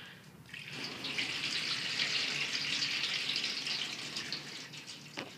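Water running steadily in a small tiled room, starting about a second in and fading near the end, with a short click just before it stops.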